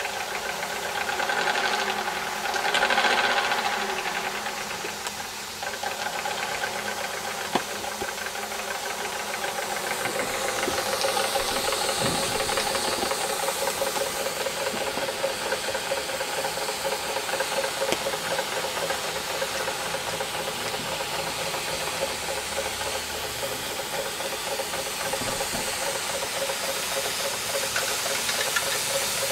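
Wilesco D22 model steam engine running: a fast, even mechanical rattle with a steady hiss of steam, the hiss growing stronger about ten seconds in.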